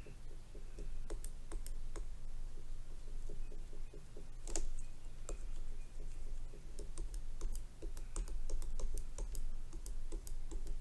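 Stylus pen tapping and stroking on a tablet's glass screen while erasing and shading, making many quick, irregular clicks, with one sharper tap about four and a half seconds in.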